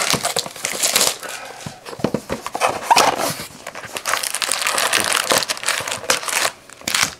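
A cardboard retail box of trading cards being handled and opened, and its foil-wrapped card packs pulled out: crinkling of the wrappers mixed with cardboard clicks and knocks.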